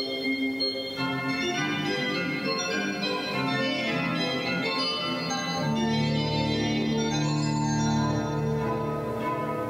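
Pipe organ playing held chords, with deep bass notes coming in about halfway through.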